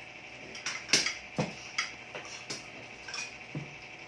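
Kitchen utensils knocking and clinking against cookware: about eight sharp, separate clinks at uneven intervals, over a faint steady high hum.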